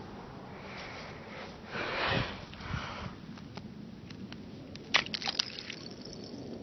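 A person stepping out on thin pond ice: a loud breath about two seconds in, then a quick cluster of sharp clicks or cracks about five seconds in.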